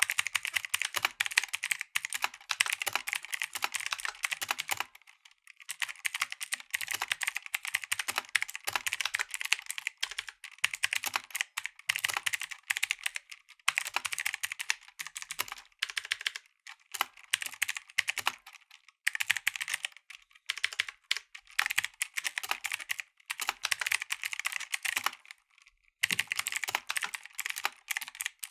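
Mechanical keyboard with clicky blue switches being typed on: fast runs of sharp key clicks, broken every few seconds by short pauses.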